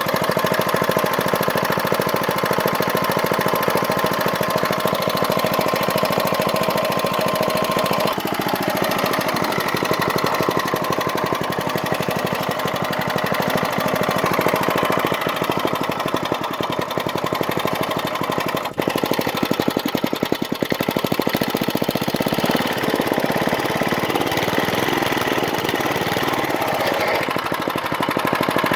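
Small Briggs & Stratton engine on a go-cart running steadily after a cold start, a fast, even putter with a brief dip about two-thirds of the way through.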